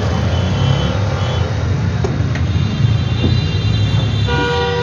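Steady low rumble of road traffic, with a brief pitched tone, like a vehicle horn, sounding for about half a second near the end.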